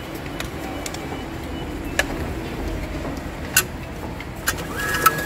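Fare-card charging machine's bill slot taking in a banknote: a few sharp clicks, then near the end a steady high mechanical whine lasting about a second as the note is drawn in, over a low steady background hum.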